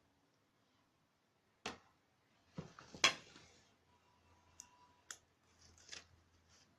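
A few scattered clicks and knocks of kitchen dishes and utensils being handled and set down on a counter, the loudest about three seconds in.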